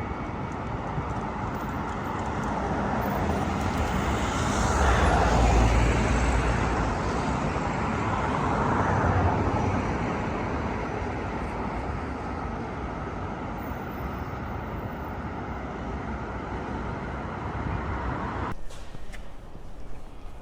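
Road traffic: vehicles passing steadily, swelling twice as they go by, then cutting off abruptly about two seconds before the end to a quieter background.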